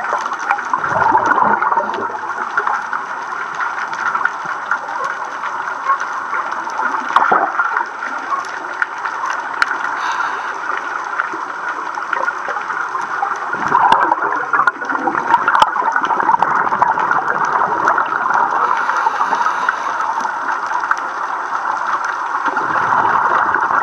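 Scuba divers' regulator breathing heard underwater: bubbling, gurgling exhalations every several seconds over a steady watery hiss.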